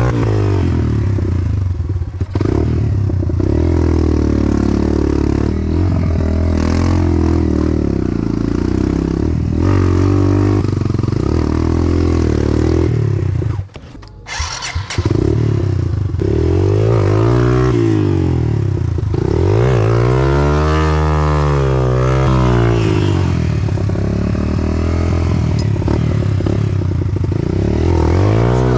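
Enduro dirt bike engine revving up and down over and over as the bike is worked through a muddy rut at low speed. About halfway through, the engine sound drops out for about a second, then picks up again.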